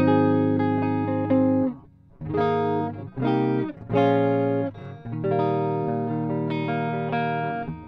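Epiphone Dot semi-hollow electric guitar played on its neck pickup: chords strummed and left ringing, then a run of short, choppy chord stabs a few seconds in, then another long ringing chord near the end.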